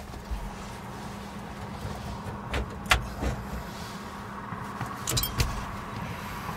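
A few sharp clicks and taps from hand tools being worked at the empty ignition lock opening, over a steady low hum. The clearest come about two and a half to three seconds in and again a little after five seconds.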